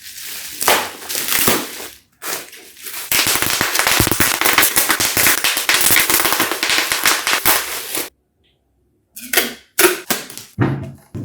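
Speaker packaging handled during an unboxing: a dense run of crackling and rustling with many sharp clicks, loudest in the middle, cut off abruptly twice and followed by a few short bursts.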